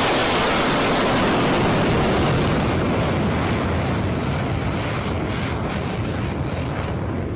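Rocket motor of a rail-launched ballistic missile at lift-off: a loud, continuous rushing exhaust noise that slowly fades as the missile climbs away.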